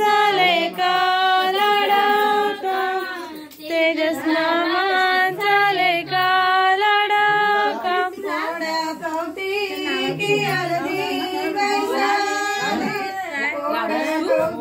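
A high voice singing a slow melodic song, its long held notes wavering, in phrases broken by short pauses.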